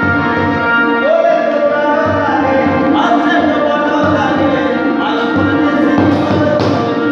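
Marwari folk song: a voice singing over held instrumental tones and a steady drum beat. The singing comes in about a second in.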